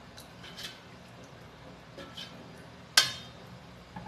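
A plastic ladle stirring curry in a stainless steel pressure cooker, with a few soft scrapes and one sharp clack against the pot about three seconds in.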